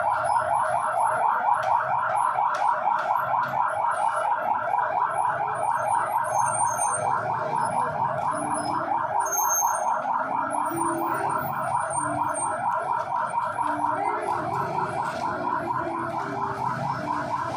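Steady electronic warbling alarm tone that repeats several times a second and keeps going without a break.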